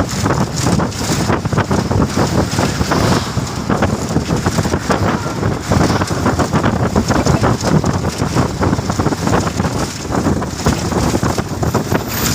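Wind buffeting the microphone, a loud rough rush with constant flutter, over the steady noise of road traffic.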